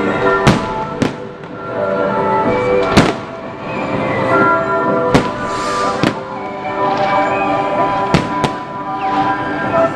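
Aerial firework shells bursting, about seven sharp bangs spread over the ten seconds, the loudest about half a second and three seconds in. Loud music plays steadily underneath.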